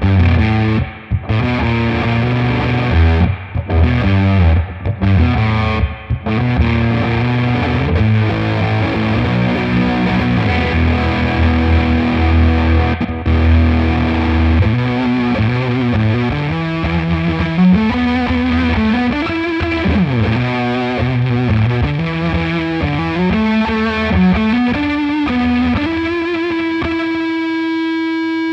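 Distorted electric guitar played through a DigiTech Polara reverb pedal on its modulated reverb setting. Chords come first, then a single-note line climbs in steps and ends on one held note that rings on in the reverb.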